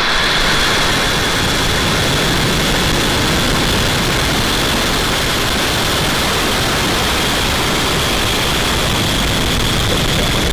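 Falcon 9 first stage's nine Merlin rocket engines roaring at liftoff, a loud, steady rumble-and-hiss that holds at full strength.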